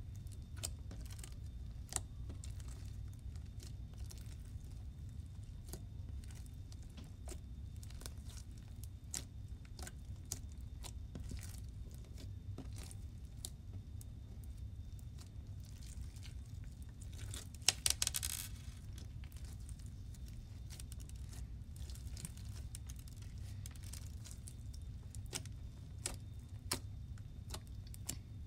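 Hands kneading a crunchy beaded slime as lotion is worked in to soften it: scattered small clicks and crackles over a steady low hum, with one louder crackling burst about two-thirds of the way through.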